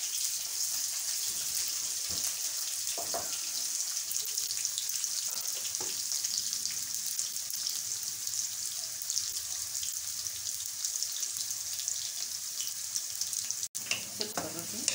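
Sliced red onions sizzling in hot cooking oil in a wok: a steady hiss peppered with small crackles.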